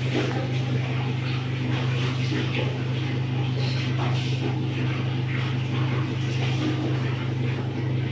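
A steady low machine hum, with faint scattered clicks and rustles over it.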